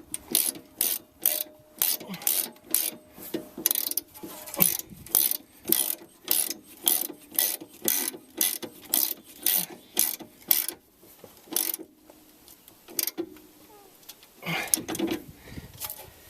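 Ratchet wrench clicking in quick even strokes, about two a second, as it runs the nut down on the strut's lower mounting bolt. The clicking stops about two-thirds of the way in, and a short rough handling noise follows near the end.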